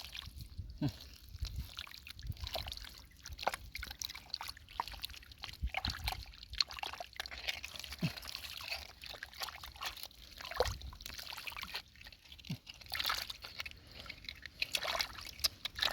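Hands digging through wet mud and shallow water, with irregular splashing, sloshing and squelching.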